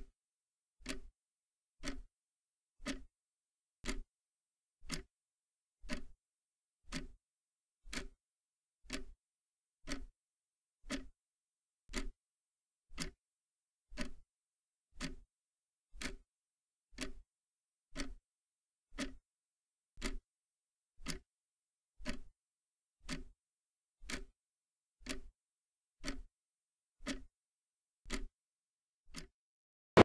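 A clock ticking steadily, about once a second; each tick is a short click with a dull low knock beneath it.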